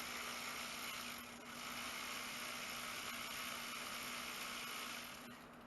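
A steady hiss like rushing air, from a pneumatic tool or air line. It starts abruptly, dips briefly a little over a second in, and cuts off abruptly about five seconds in.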